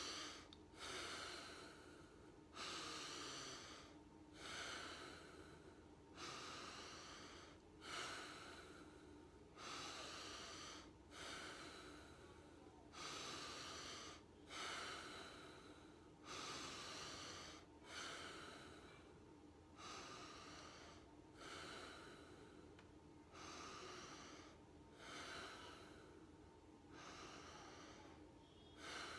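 Bhastrika pranayama (bellows breath): a man breathing forcefully in and out through the nose in a steady rhythm. Each breath is a faint rushing sound that starts sharply and fades, about one every one and a half seconds.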